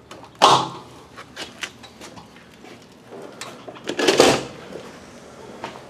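A door being opened and thudding shut, two heavy knocks with lighter clicks between them, in a small room.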